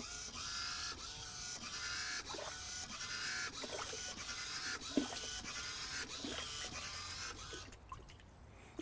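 Wave-tank paddle wave maker running with a steady mechanical whir, while small waves slosh and break up a model beach and splash against and over a small vertical wall, with one sharper splash about five seconds in. The machine noise stops shortly before the end.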